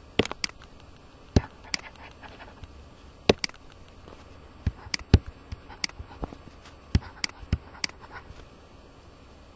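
Sharp, irregular clicks and taps of pen input on a computer as a short note is handwritten on screen: some fifteen to twenty separate clicks spread unevenly, one stroke after another.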